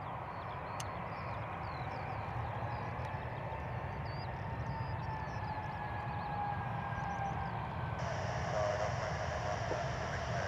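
Jet engines of a Ryanair Boeing 737-800 on final approach, just before touchdown: a steady rumble with a faint whine that slowly falls in pitch. Birds chirp faintly in the background.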